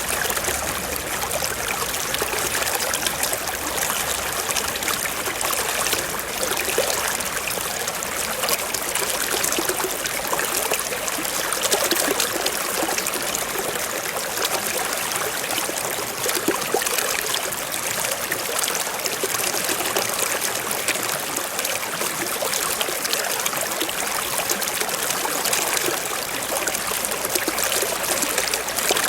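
Shallow stream trickling and babbling over rocks, a steady, dense rush of water.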